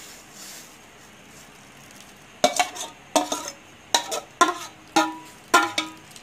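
Steel cooking pot ringing as a spatula knocks and scrapes curdled milk (chenna) out of it into a straining cloth. A series of sharp ringing knocks, about two a second, starts a little over two seconds in.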